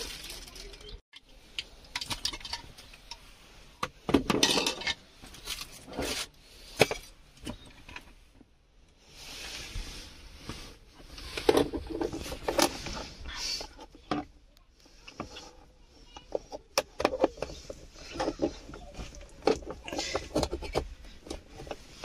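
Handling noises: clear plastic wrapping crinkling and rustling around a handheld car vacuum cleaner, with irregular clicks and knocks as its power cord and plug are handled. The vacuum's motor is not running.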